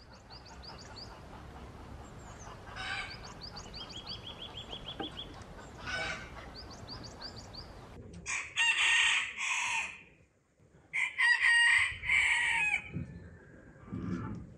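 A rooster crowing twice in the second half, each crow long and loud, after a stretch of small birds chirping in short repeated notes with a brief trill.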